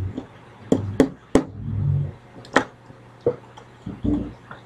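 Scattered sharp knocks and clicks, about eight of them at irregular intervals, with a couple of short muffled low thumps and a faint steady low hum underneath.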